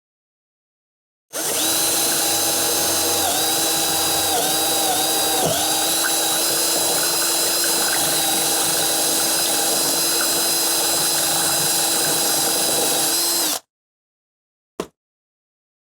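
A power tool's motor running steadily for about twelve seconds at a constant pitch, dipping briefly a few times as it takes load, then cutting off abruptly. A single short click follows near the end.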